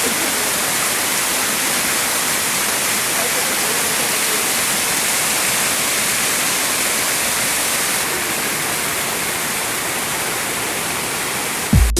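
Waterfall's falling water making a steady, dense rush. Dance music with a heavy beat cuts in at the very end.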